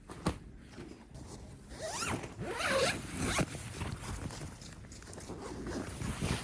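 A zipper being pulled, the longest and loudest draw about two to three and a half seconds in, with light handling rustles and clicks around it.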